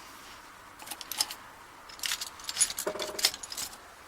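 Small metal tools and lock parts clinking and rattling on a workbench in two short flurries of light, high clicks as they are shuffled about by hand, with a brief metallic ring about three seconds in.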